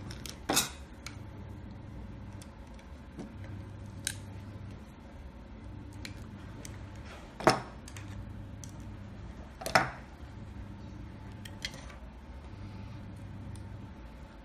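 Small hard clicks and taps, about five spread apart, the loudest about halfway and two-thirds through, as small hardware (nuts, screws and a 3D-printed plastic stepper-motor mount) is handled and set down on a desk. A low hum sits underneath, coming and going.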